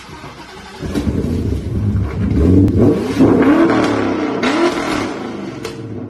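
Ford Mustang GT's 5.0-litre V8 exhaust, loud, revved in several quick blips that rise and fall in pitch.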